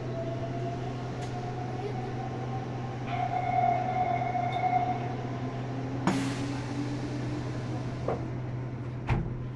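Meitetsu 100 series commuter car standing at a platform with its doors open. Its equipment gives a steady low hum, a held tone sounds from about three to five seconds in, and a few sharp knocks come near the end.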